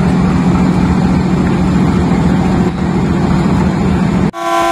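Diesel locomotive engine running loudly at the platform, a dense rumble with a steady low hum. Near the end it cuts off abruptly and the locomotive's air horn starts, a steady multi-tone chord that is the first departure whistle.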